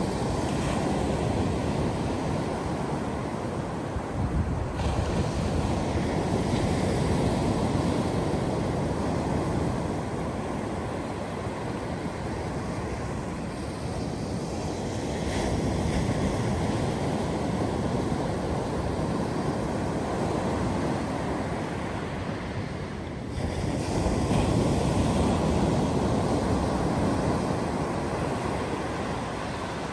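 Ocean surf breaking and washing up a sandy beach, a steady rush that swells and eases every several seconds, with one sudden surge about three-quarters of the way through.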